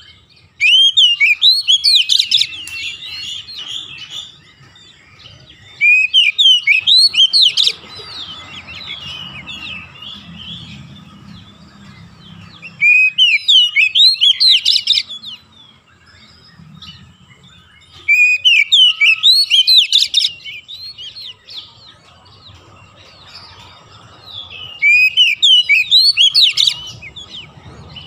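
Oriental magpie-robin singing: five loud phrases of rapid rising whistled notes, each about two seconds long and coming about every six seconds, with softer twittering between them.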